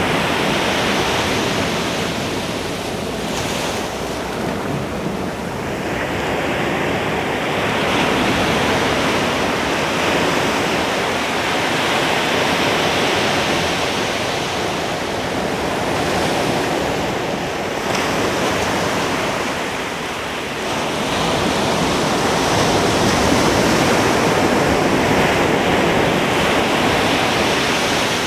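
Ocean surf breaking on a beach: a continuous wash of noise that swells and eases as successive waves roll in and draw back.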